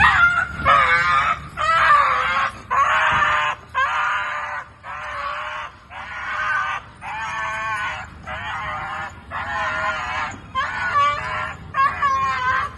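A dog screaming in distress: about a dozen long, high, wavering yelping cries, roughly one a second. These are the cries of an injured dog with a prolapsed eye.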